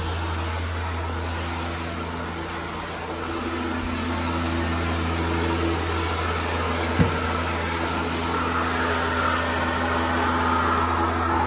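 Carpet-cleaning equipment running with a steady drone over a hiss, with one sharp knock about seven seconds in.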